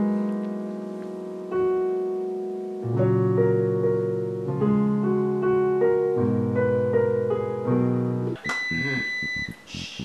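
Electric stage piano playing slow sustained chords, with a lower bass line joining about three seconds in. The playing stops about eight and a half seconds in, followed by a short steady high tone and scattered noise.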